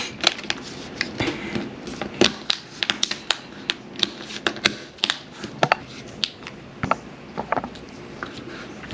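Plastic screen bezel of a Lenovo Chromebook 300e being pressed back onto the lid, its clips snapping into place in a long run of sharp, irregular clicks, about two or three a second.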